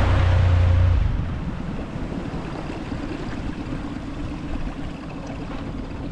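Tow boat's motor running under power, then eased back about a second in after the rider falls. It settles to a quieter, steady run with water noise around the hull.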